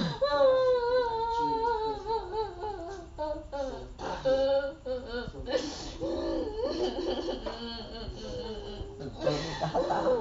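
A young girl's voice crying out in long, drawn-out wails that waver and slide in pitch, broken by short breaks and sobbing catches.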